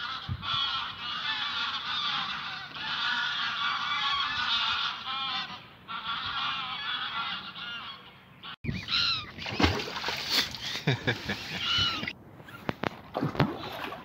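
A large flock of geese honking, many calls overlapping, for about the first eight seconds. After a sudden break come scattered knocks and a few single calls.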